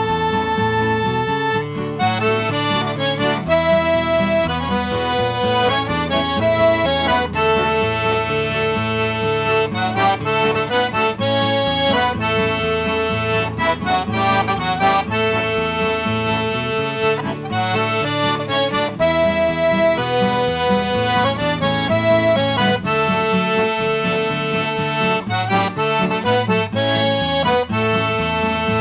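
Diatonic button accordion playing a waltz, with acoustic guitar accompaniment.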